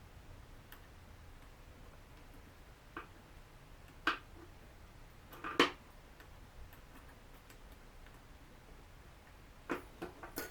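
Small, sharp clicks and taps at irregular moments, the loudest about halfway through. They come from small screwdrivers and tools handling the plastic parts and screws of a drone's body while it is taken apart.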